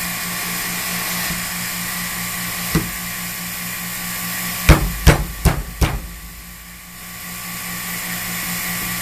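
Harbor Freight vacuum pump running with a steady hum while it draws down a vacuum fixture. A single knock comes about three seconds in, then four sharp knocks in quick succession about halfway through, and the hum dips briefly after them.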